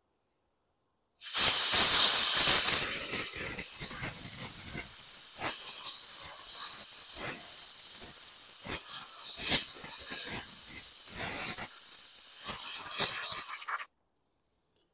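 Compressed air from a blow gun hissing into a carburetor float bowl to blast out water and stale fuel deposits, loudest in its first two seconds, then weaker spurts mixed with clicks and knocks of the nozzle against the bowl, cutting off suddenly near the end.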